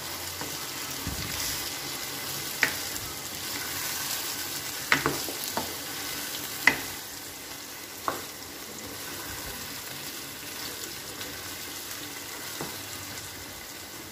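Beef and freshly added chopped tomatoes sizzling as they fry in a nonstick karahi, frying down until the tomatoes soften. A spatula stirs through them, knocking against the pan about six times, mostly in the first half and once near the end.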